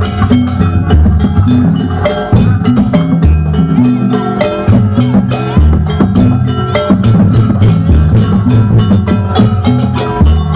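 Live jaranan gamelan music: kendang hand drums and mallet-struck metal instruments playing a fast, dense rhythm, with deep low strokes every two to three seconds.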